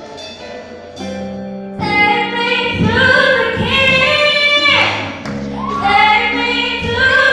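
Keyboard chords held for about two seconds, then a girl soloist sings a gospel song into a microphone over the accompaniment, holding long notes.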